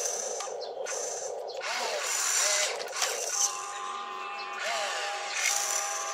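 Remote-control excavator's small electric motors and gears whining and grinding as the bucket dumps and the cab and boom swing round. The pitch rises and falls in short sweeps, and a steady higher whine joins about halfway in.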